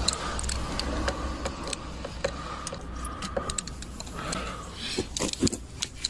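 Scattered light clicks and rattles of a hand tool and plastic trim being worked under a car's dashboard, over a faint low rumble.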